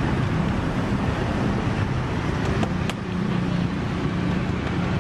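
Steady street traffic noise with a low engine hum, and a sharp click about three seconds in.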